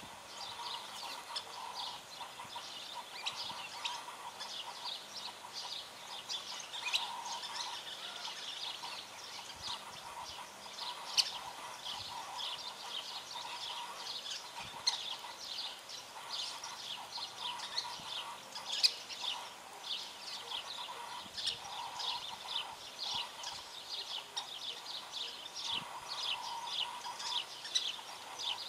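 Small birds chirping continuously, a dense run of short high chirps with a few louder ones standing out now and then.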